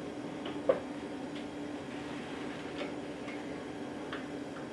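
Scattered light clicks and taps of a pin marking mounting-hole positions through the back of a plastic instrument enclosure, with one sharper tap about three-quarters of a second in, over a steady low hum.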